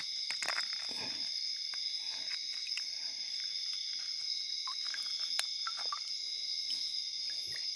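Steady chorus of night insects, several high-pitched tones shrilling together without a break, with faint scattered clicks and rustles of hands handling a prawn close by.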